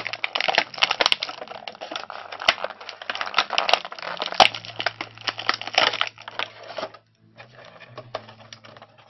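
Clear plastic blister packaging and wrap crinkling and crackling as it is handled, with dense irregular crackles and sharp clicks. It is loud for about seven seconds, then stops briefly and goes on more softly near the end.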